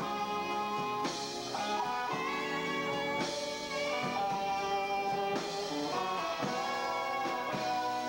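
Small band playing live, an electric guitar holding and bending notes over a drum kit with regular crashing hits.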